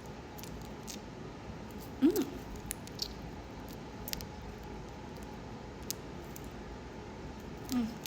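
Scattered clicks and light metal clinks of wristwatches being handled and set down, the loudest about two seconds in, over a faint steady hiss.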